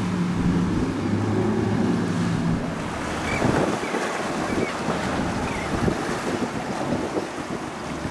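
A motorboat's engine running with a steady low hum that fades out about three seconds in, over strong wind buffeting the microphone and the wash of waves.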